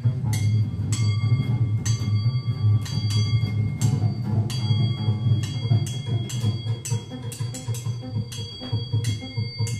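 Live trio of upright double bass, guitar and drum kit playing. A low bass line runs under frequent drum and cymbal strikes, with a few high tones held ringing above. It gets somewhat quieter in the second half.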